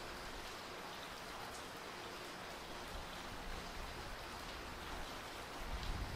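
Steady rain falling, an even hiss. A low rumble swells in underneath near the end.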